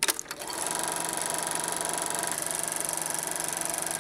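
Film projector switched on with a click, then its motor and film mechanism running with a steady, fast, even clatter and hum.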